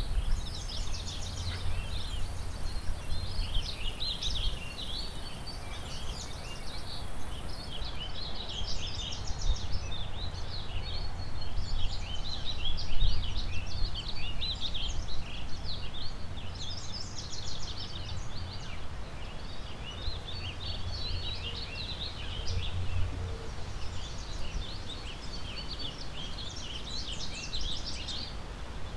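A chorus of many songbirds singing at once, over a steady rush of river water and a gusting low wind rumble. A faint high steady hiss stops about eight seconds in.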